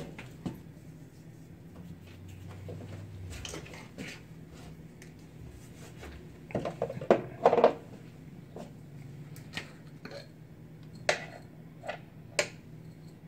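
Clatter of kitchen items being handled: a quick cluster of knocks and clinks about seven seconds in, then a few scattered single clicks, as of jars and utensils being picked up and set down.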